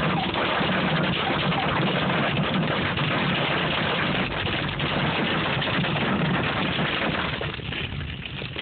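Hail hitting a car's roof and windshield, heard from inside the cabin: a loud, dense clatter that eases near the end.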